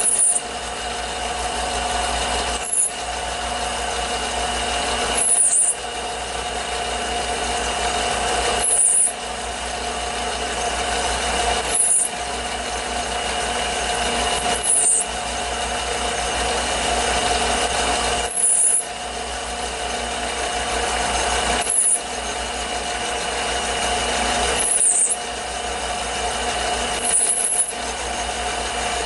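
Metal lathe running with a steady motor whine while a drill bit in the tailstock chuck cuts into a spinning cast-iron workpiece with a grinding rasp. The cutting builds over about three seconds, then breaks off sharply for a moment, about ten times.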